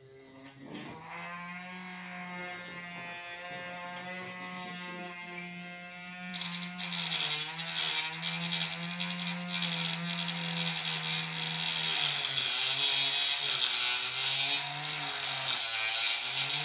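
Small battery-powered DC motor of a homemade mini saw, running with a steady whine. About six seconds in, its spinning blade meets a wooden pencil and a loud scraping cutting noise takes over, with the motor's pitch dipping and wavering under the load.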